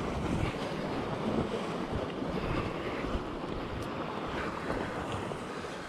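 Sea surf washing against the rocks below, with wind buffeting the microphone: a steady rushing noise.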